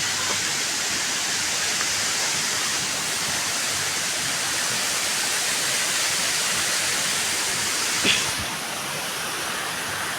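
Waterfall rushing in a steady, dense roar of water. About eight seconds in there is a brief knock, after which the rush is a little quieter.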